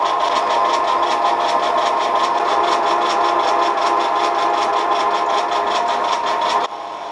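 Metal lathe running, its spindle turning an aluminium-alloy bar while a drill in the tailstock bores into the end: a steady mechanical whine with a rapid, even pulsing. It stops abruptly near the end, leaving a quieter steady hum.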